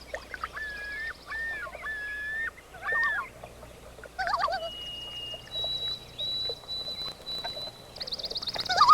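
Several wild birds calling and singing. First come three arched, slurred notes, then two more complex calls. Next are two long, steady, high whistled notes, and a fast high trill starts near the end.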